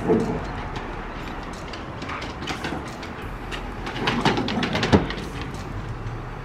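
Siberian huskies play-fighting on a wooden deck: claws scrabbling and clicking on the boards, with short growling grumbles, busiest around four to five seconds in.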